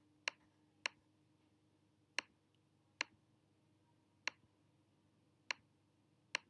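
Seven sharp, separate clicks of a computer mouse button at an uneven pace, each placing an anchor point while a shape is drawn with Illustrator's curvature tool.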